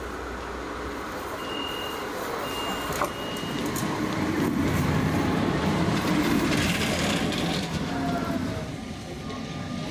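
Bombardier Flexity Swift tram running past on ballasted track, its rumble swelling to its loudest as it goes by close, between about four and seven seconds in. About two seconds in there are three short high beeps and a sharp click, and near the end rising whines begin.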